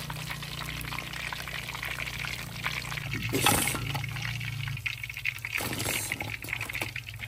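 Hot oil crackling and sizzling in a wok of frying fish, with oil running off a slotted spoon as the fried pieces are lifted out. Two louder rushes come about three and a half and six seconds in.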